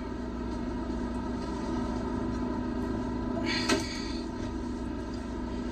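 Steady, even machine hum with no speech, and one brief soft noise about three and a half seconds in.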